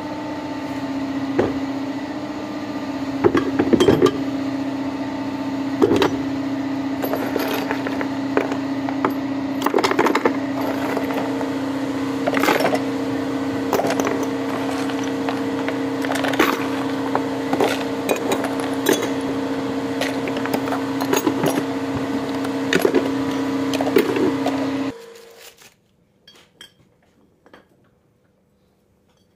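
Metal alternator parts clinking and knocking against each other and the metal tray as they are washed and handled, over a steady mechanical hum. Near the end everything cuts off, leaving a few faint taps.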